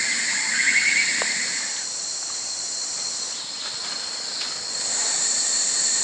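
Rainforest insect chorus: a steady high-pitched hiss, joined for the first two seconds by a lower, pulsing insect trill.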